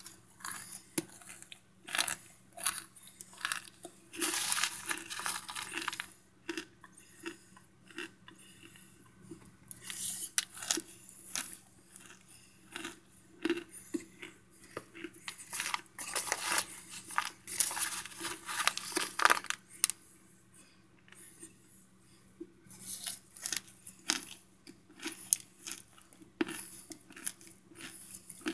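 Crisp crunching and cracking of chunks of microwaved cornstarch being chewed: an irregular run of sharp crackles with several longer, denser crunching spells.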